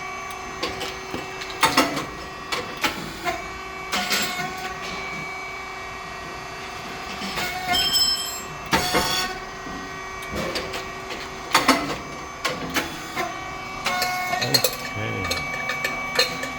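Rice cake machine running: a steady hum from its hydraulic pump motor and fan, broken by sharp clanks and pops from the moulds and feeding plate every second or few. The loudest knocks come about 2, 4, 9 and 12 seconds in.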